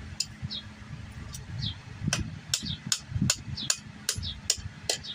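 Hand hammer striking the hot steel of a chisel on an anvil, in a steady rhythm of about two to three blows a second, each with a short ring. The smith is shaping and rounding the chisel's edge.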